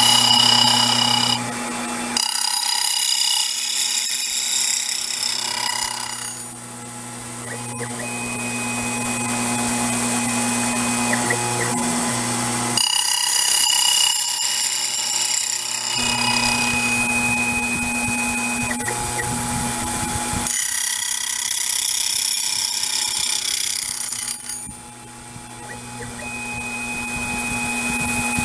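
Taig CNC milling machine cutting gear teeth into a Corian blank with a spinning gear cutter: steady motor whines with a cutting noise, the sound changing in a repeating cycle every several seconds as each tooth is cut.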